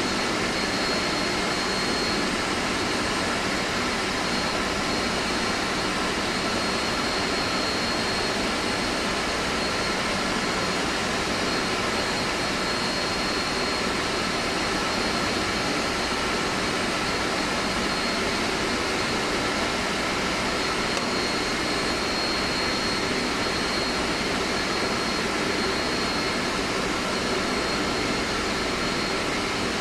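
Steady, even drone of air-conditioning plant machinery running, a dense noise with a thin high whine held over it.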